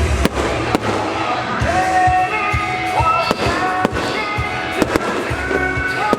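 Aerial fireworks going off in a string of irregular sharp bangs, with music playing underneath.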